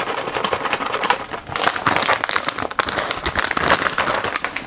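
Plastic shredded-cheese bag crinkling as it is shaken and squeezed over the pot: a dense, irregular run of crackles.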